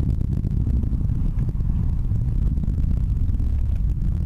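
Distant roar of an Atlas V rocket's engines during ascent, heard as a steady low rumble with a crackle running through it.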